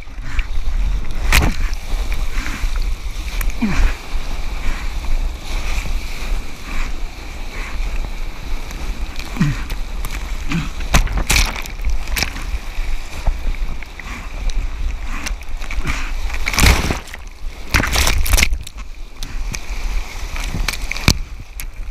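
Seawater splashing and sloshing around a mouth-mounted GoPro at water level, over a constant low rumble of water buffeting the camera housing. Several loud splashes of breaking whitewater come through, the biggest a little past the middle and again near the end.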